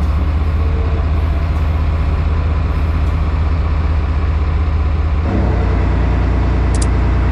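A fishing boat's engine running with a steady, deep drone. Its tone shifts abruptly about five seconds in.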